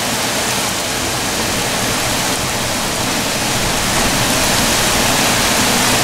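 Heavy rain, a steady loud rush, with water pouring off the edges of a flat roof whose drains are overwhelmed.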